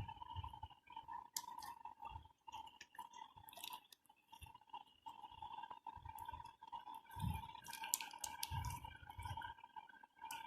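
Slime being handled and squished by hand: faint irregular sticky clicks, small pops and soft squelches, over a faint steady high whine.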